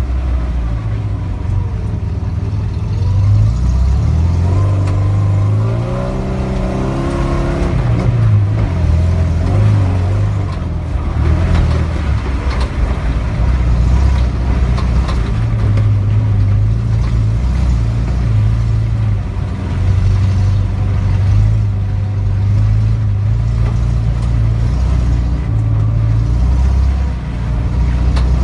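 Off-road 4x4 engine running hard under load, revving up about six seconds in and then rising and falling unevenly.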